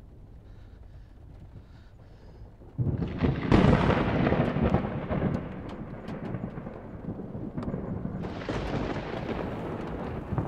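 Thunder: a low rumble, then a sudden loud crack about three seconds in that rolls away slowly, with a second roll of thunder swelling near the end.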